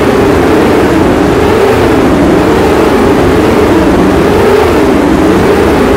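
Experimental soundtrack drone: a loud, steady rumble with a wavering tone that sweeps up and down about once a second.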